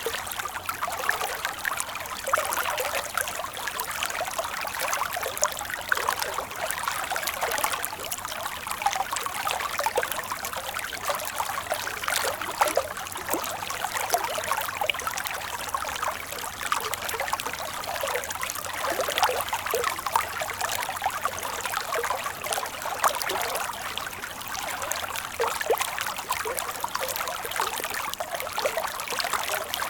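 Water flowing in a stream, a steady babble of trickling and small splashes with no low rumble.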